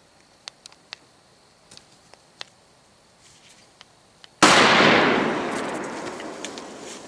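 A single shotgun shot at a wild turkey gobbler, about four and a half seconds in, with its echo rolling away over the next couple of seconds. Before it there are a few faint ticks.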